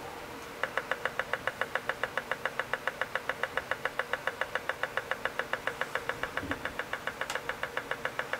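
A 386 PC's internal speaker ticking evenly, about seven clicks a second, as the BIOS counts up memory during the power-on self-test, over a faint steady hum.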